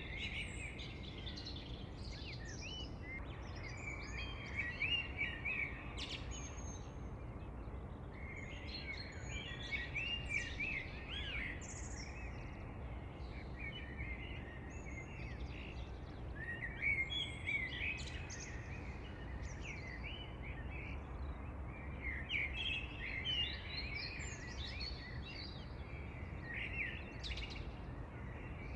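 Birds singing in bursts of quick, high chirping phrases that come every few seconds, over a steady low background hum.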